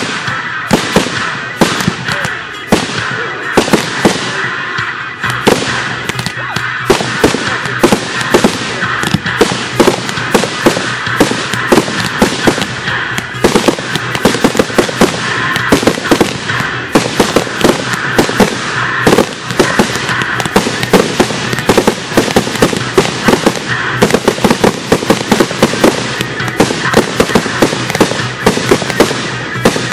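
Consumer fireworks firing in rapid succession, with sharp bangs and crackles several times a second throughout.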